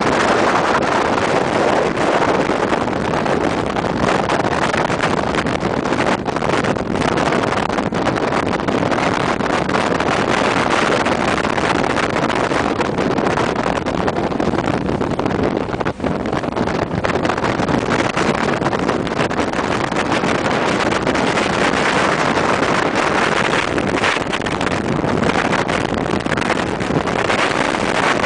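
Motorboat running at speed over choppy sea: a steady loud rush of engine, water and wind on the microphone.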